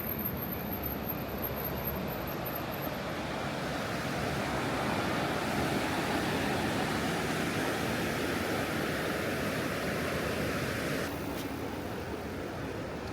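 Steady rushing noise with no clear pitch, a little louder in the middle and changing suddenly about eleven seconds in.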